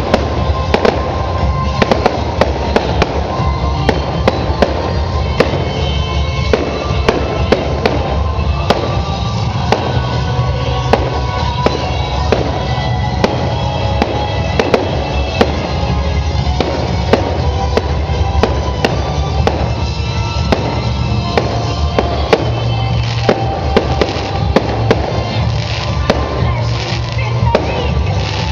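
Fireworks display: frequent bangs and crackles of aerial shells bursting, several a second, with music playing throughout.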